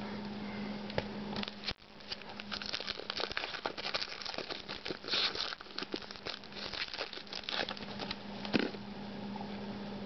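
Trading-card pack wrapper crinkling and tearing as a pack is opened by hand, a run of small crackles from about two seconds in until near the end.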